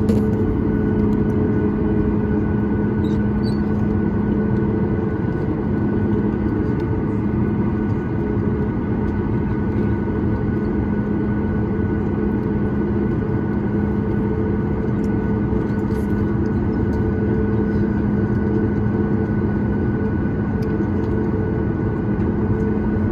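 Cabin noise of a Boeing 737 MAX 9 taxiing, its CFM LEAP-1B engines at idle: a steady rumble with several constant whining tones over it, heard from a window seat over the wing.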